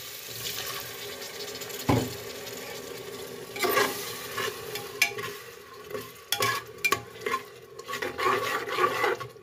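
A little water poured into hot onion-and-spice masala in a pressure cooker hisses and sizzles, with one sharp knock about two seconds in. From about halfway a metal ladle stirs the frying masala, scraping and clinking irregularly against the cooker's sides.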